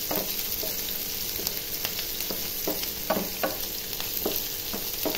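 Sliced onions sizzling in hot oil in a frying pan, stirred with a wooden spatula that scrapes and knocks against the pan about twice a second.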